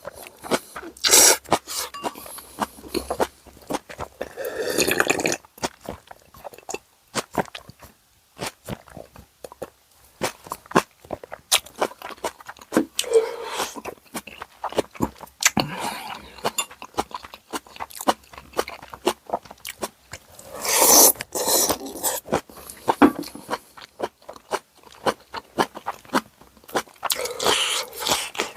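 Close-miked eating: a person chewing and crunching through a meal of tonkotsu ramen and karaage fried chicken, with many small mouth clicks. A few louder, longer noisy stretches come about a second in, around five seconds, a little past twenty seconds and near the end.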